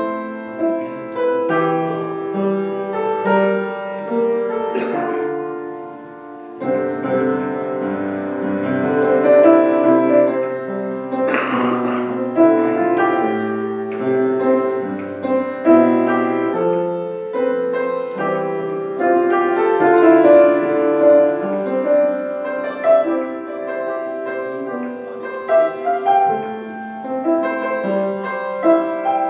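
Piano music: a single instrument playing a slow piece with chords and a moving melody. Two short noises cut through briefly, about five seconds in and again near twelve seconds.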